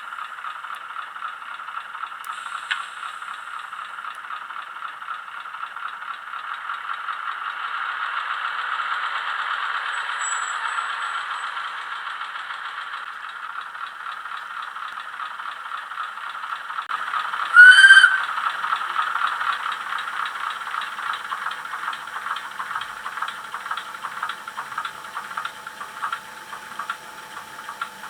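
ZIMO sound decoder of an H0-scale NS series 200/300 diesel shunter model playing the small diesel engine running with a fine rattle, through the model's tiny speaker. About seventeen seconds in, a short, loud horn blast sounds, its pitch rising as it starts.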